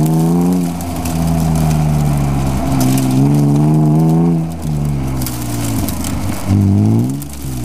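BMW E36 M3's straight-six engine heard from inside the cabin, revving up under acceleration and falling back off the throttle between cones. The pitch climbs three times, the last climb brief and near the end.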